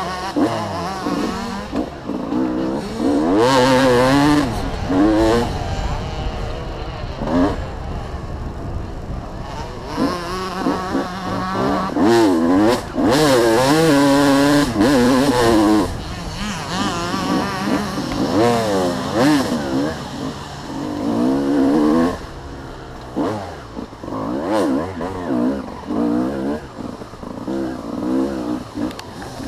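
Dirt bike engine racing along a trail, its revs rising and falling over and over as the rider works the throttle through turns and straights, heard close up from a camera on the bike.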